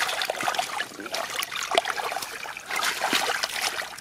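Hands working through shallow muddy water and mud, with irregular small splashes, sloshing and trickling.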